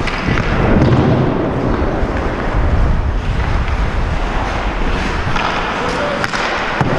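Ice skates scraping and cutting across the ice with wind buffeting a helmet-mounted camera's microphone as the wearer skates, and a sharp clack near the end.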